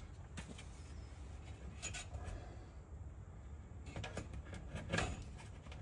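Scattered clicks and knocks of parts being handled and fitted, the loudest knock about five seconds in, over a steady low rumble of wind.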